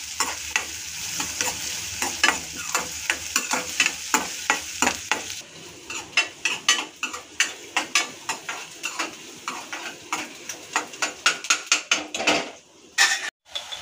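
A steel ladle scrapes and taps against a kadai, stirring chopped onions, garlic and chillies that sizzle in hot oil. The quick run of scrapes sits over a steady frying hiss, with a brief break near the end.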